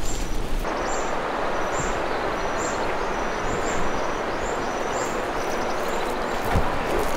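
Steady rushing noise of running stream water, with a small bird repeating a short high call about once a second. A low wind rumble on the microphone cuts out about half a second in.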